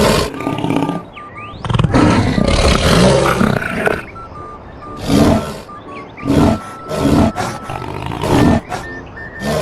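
Made-up big-cat roars blended from jaguar, lion and tiger recordings: a long roar a couple of seconds in, then a string of shorter roars about a second apart. Soft background music plays underneath.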